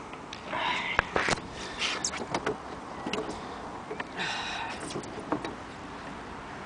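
Scattered knocks and thumps in a small rowing boat with wooden bench seats, with two short bursts of rustling, as a freshly caught trout is handled on the bench. The sharpest knock comes about a second in.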